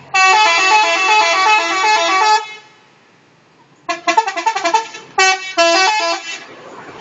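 Indonesian 'telolet' bus horn, a multi-tone musical horn, playing a fast tune of quickly alternating notes for about two seconds. After a short pause it plays again in two quick bursts.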